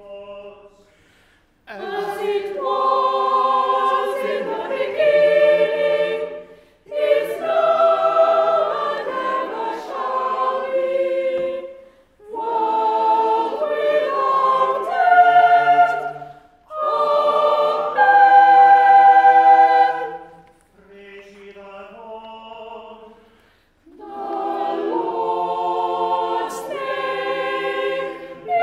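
Unaccompanied church choir singing the sung preces and responses of Choral Evensong in several-part harmony, in four phrases with short breaks. About three-quarters through, a single cantor's voice sings a short quieter line, and the choir answers it.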